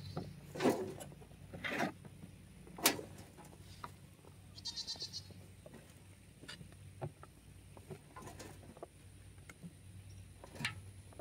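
Shovels scraping into a pickup bed of mulch and dumping it into a wheelbarrow: a series of separate scrapes and thuds a second or so apart. A short, rapidly pulsed high call is heard about four seconds in.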